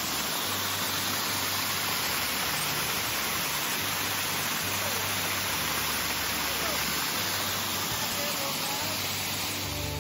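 Small waterfalls on a rocky creek pouring over stone ledges: a steady rush of falling water.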